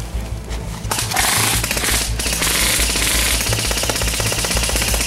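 Airsoft guns firing rapid automatic bursts, a fast rattle of shots that starts about a second in and keeps going.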